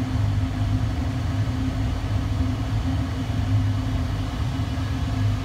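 Jeweller's polishing motor running with a steady hum, its buffing wheel spinning on a tapered spindle while coral beads are polished against it.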